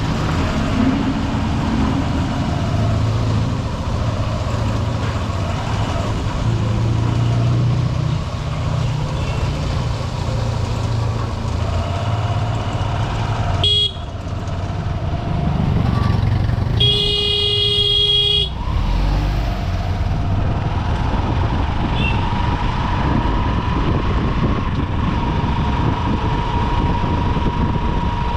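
Honda SP125's single-cylinder engine running steadily under way in heavy traffic, with road noise. A short horn toot comes about 14 seconds in, and a louder horn blast of about a second and a half follows a few seconds later.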